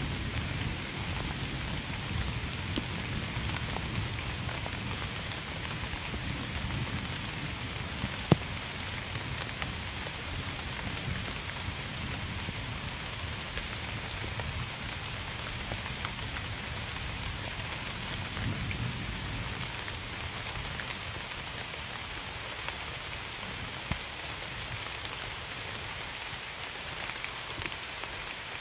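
Steady rain falling, with scattered individual drops ticking on a surface and a low rumble underneath; one sharper drop or tap stands out about eight seconds in.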